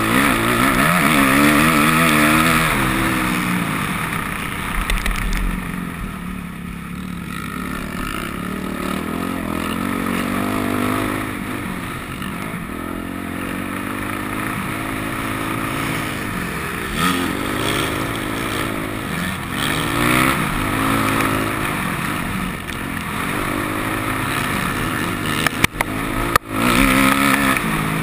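Motocross bike engine revving up and dropping back again and again through the gears, heard close up from the onboard camera. There are a couple of brief dropouts in the sound near the end.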